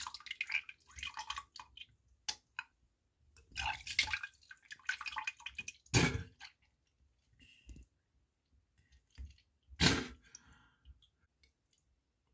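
A person vomiting and spitting into water: liquid splashing and dripping in bursts, with two sharp splats, one about midway and one near the end.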